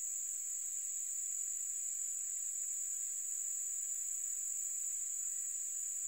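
Crickets trilling in a steady, unbroken high-pitched chorus.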